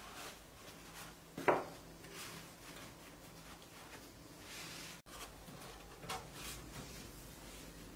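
Soft rustling and swishing of a cotton waffle-weave tea towel as hands wrap a ball of bread dough on a wooden board, with one sharp knock about a second and a half in.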